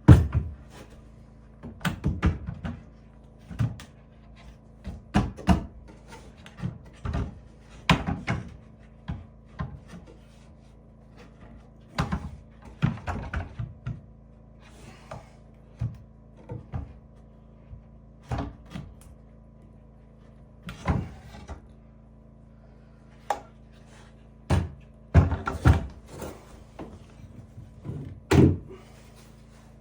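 Irregular wooden knocks and thuds, singly and in short clusters with pauses between, from handling and fitting wooden cabinet doors; the sharpest knock comes right at the start.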